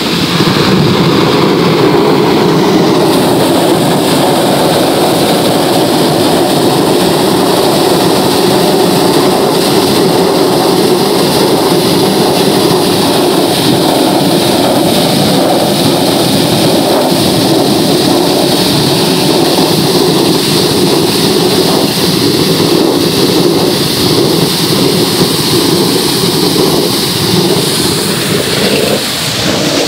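Water and compressed air blasting out of a water well's discharge pipe in a loud, steady rushing jet, the well being air-lifted clean by a compressor.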